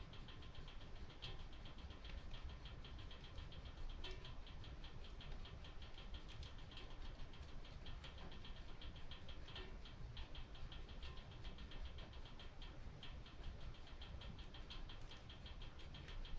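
Wood fire crackling in a fireplace: a dense, irregular run of small crackles with an occasional sharper pop, over a low steady rumble.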